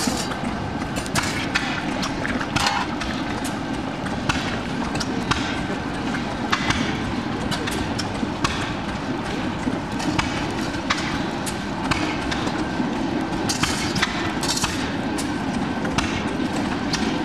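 Coal forge with its air blast running, a steady rush as the fire heats a draft horseshoe in the coals. Scattered sharp knocks sound throughout.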